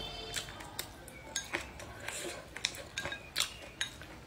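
Wooden chopsticks clicking and scraping against a ceramic rice bowl while picking up food: a dozen or so light, irregular clicks.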